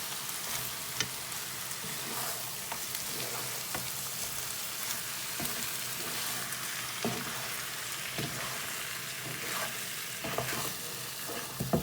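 Marinated lamb pieces and masala sizzling in a pot over medium-high heat, with a spatula scraping and stirring through them every so often.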